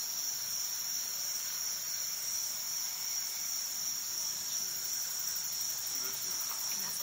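Steady, high-pitched chorus of insects such as crickets, a continuous shrill drone with no break.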